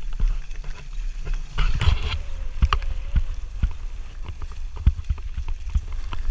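Skis sliding through snow, with a louder scraping swish about one and a half seconds in and scattered sharp knocks throughout. A low wind rumble sits on the microphone.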